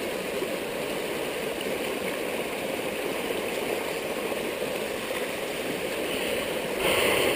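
Fast-flowing floodwater rushing over a flooded dirt track around a bogged dirt bike, a steady rush of water that grows briefly louder near the end.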